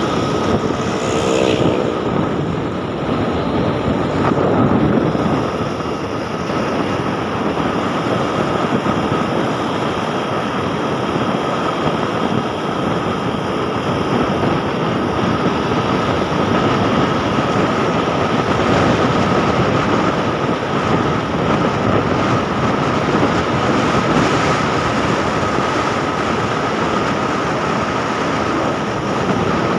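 Steady noise of a moving road vehicle, engine and road rush together, with a constant high whine running through it.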